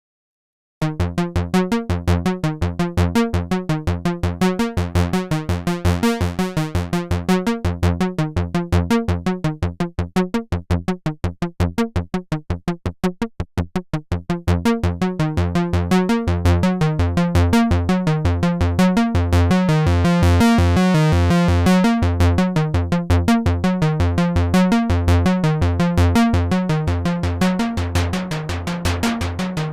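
Synthesizer playing a fast, even sequence of short bass notes. Around ten to fourteen seconds in it turns quieter and duller, then grows loud and bright again.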